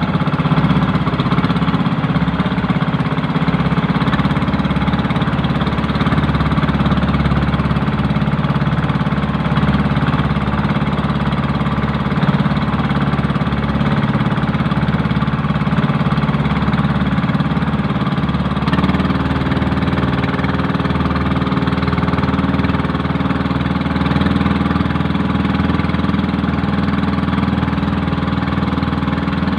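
Engine of a small motorized outrigger boat running steadily under way, a loud continuous drone. Its note shifts slightly about two-thirds of the way through.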